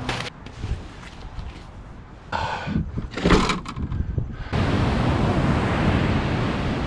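A few knocks and rustling noises, then, about four and a half seconds in, a sudden switch to a steady rush of wind on the microphone with ocean surf.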